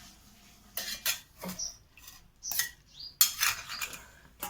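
Metal spoon clinking and scraping against a pot in a run of irregular clatters, loudest about three seconds in, as boiled tomatoes and green chillies are handled for grinding into soup.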